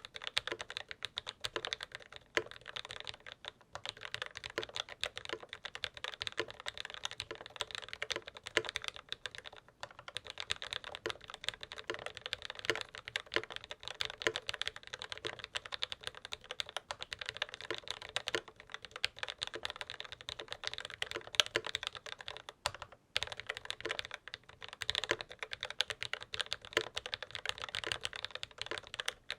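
Continuous fast typing on a Novelkeys NK87 aluminium mechanical keyboard with linear franken switches (Akko Jelly Black stems in Cherry MX Black Hyperglide housings), lubed springs and GMK keycaps: a dense run of keystrokes with a few brief pauses.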